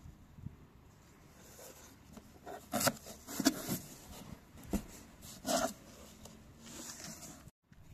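Cardboard box flaps rubbing and scraping as a shipping carton is opened, in four short bursts about a second apart.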